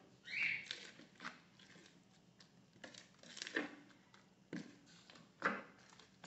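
Spoon stirring a thick, floury vegetable batter in a bowl: irregular scrapes and wet squishes against the bowl, the loudest a hissing scrape about half a second in.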